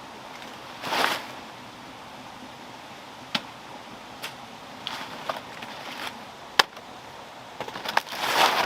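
Scattered sharp knocks and clicks over a faint steady hiss, with two louder short scraping or rustling bursts, about a second in and near the end.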